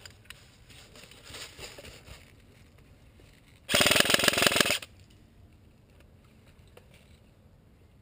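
G&G M4 airsoft rifle firing one full-auto burst, a fast rattle of shots lasting about a second, a little under four seconds in.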